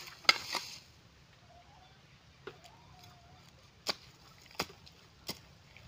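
A garden tool striking soil while a vegetable bed is dug: about six sharp, spread-out strikes, the loudest just after the start.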